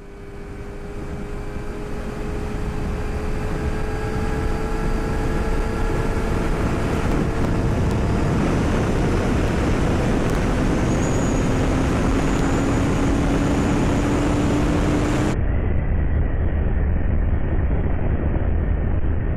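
Sport motorcycle riding at speed: a Yamaha YZF-R6S inline-four with an aftermarket Two Brothers exhaust, its engine note rising slowly as it gathers speed, under a steady rush of wind noise. About fifteen seconds in, the sound cuts abruptly to a duller, muffled recording of the same kind of engine-and-wind noise.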